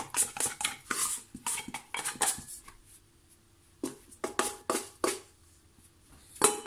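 Stainless steel mixing bowl knocked and scraped with a plastic dough scraper as dough is worked out of it: a quick run of clicks and knocks, a short lull about three seconds in, then a few more knocks.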